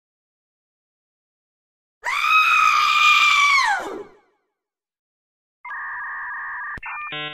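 High-pitched cartoon scream sound effect, held for about two seconds and falling off at the end. A steady electronic buzzing tone follows, then a run of short electronic beeps near the end.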